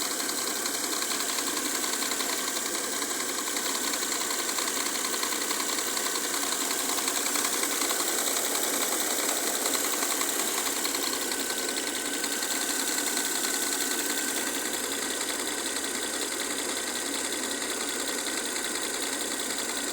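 Mercedes-Benz M272 V6 engine in a W212 E-Class idling steadily with a rapid, even clacking; the owner cannot place where the clacking comes from.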